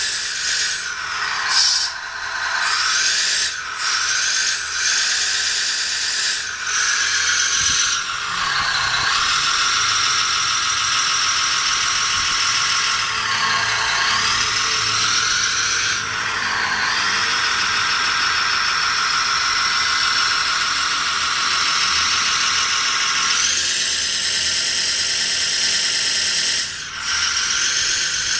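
A small high-speed electric motor whining, its pitch sagging and recovering several times, with a thin steady high whistle near the start and again near the end.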